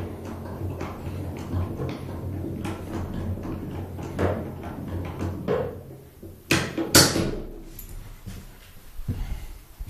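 Observatory dome shutter being opened, with a low steady hum under repeated clicks and knocks, then two loud bangs about two-thirds of the way through.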